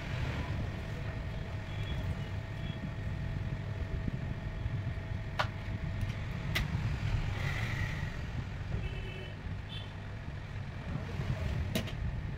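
A steady low background rumble, with a few sharp clicks from the phone being handled about five and a half, six and a half and twelve seconds in.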